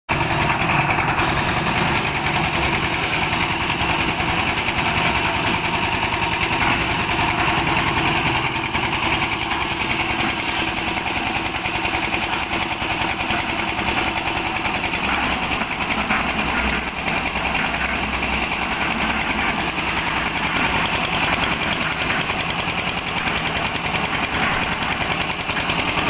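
A small engine running steadily with a fast, even pulse, as on a one-bag concrete mixer's drive.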